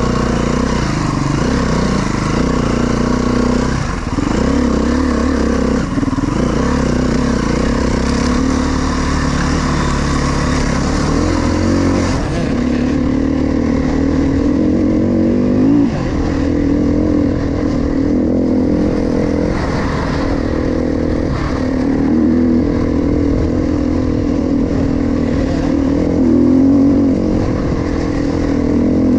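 KTM 350 XCF four-stroke single-cylinder dirt bike engine running under the rider, its pitch rising and falling with the throttle as it is ridden along a rough dirt trail.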